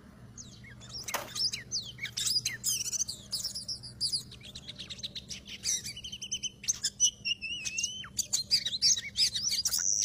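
Oriental magpie-robins calling: quick sliding whistles and chirps begin about a second in and run on densely, with a steadier warbling phrase around the middle.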